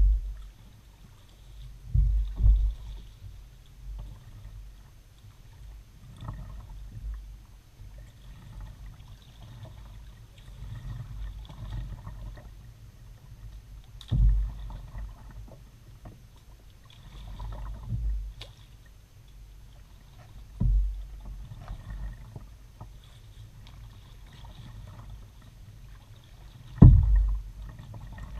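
Kayak being paddled on calm water: paddle blades dipping and dripping, with irregular low thumps every few seconds, loudest about two seconds in, near the middle and near the end. The camera is mounted on the bow, so the thumps come through the hull.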